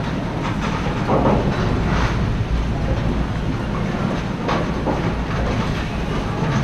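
Bowling alley din: a steady low rumble of bowling balls rolling down the lanes, with a few sharp crashes of pins about one and two seconds in and again past the middle.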